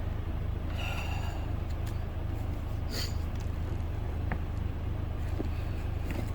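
Car engine idling with a steady low hum, with a few faint clicks over it.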